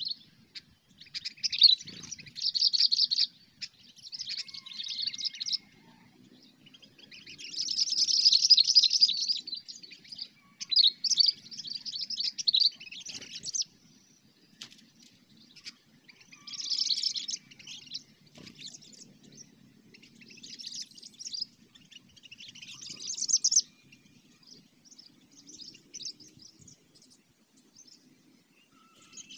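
Sooty-headed bulbuls (kutilang) calling in repeated bursts of fast chattering phrases every second or two, loudest about eight seconds in, then thinning to shorter, quieter calls near the end.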